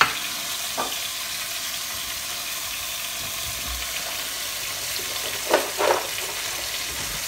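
Pork chops sizzling steadily in fat in a lidded frying pan on a gas hob, an even frying hiss with two short, louder crackles a little over halfway through.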